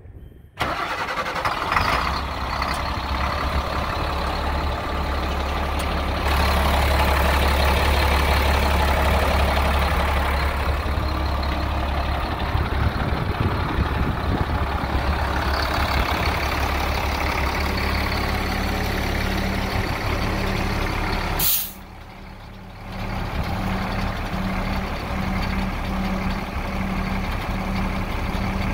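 The diesel engine of a 1999 Kenworth grain truck comes on suddenly about half a second in and runs steadily, louder for a few seconds in the first half. Late on, a short hiss of air is heard, with a pulsing hum as the hydraulic hoist raises the grain box.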